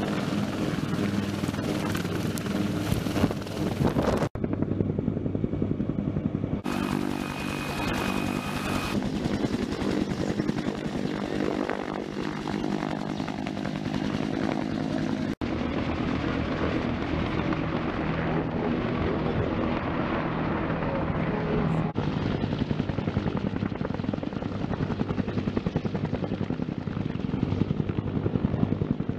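Bell AH-1Z Viper attack helicopter flying low, its rotor beating in a fast, steady chop over the engine noise. The sound breaks off suddenly and picks up again a few times.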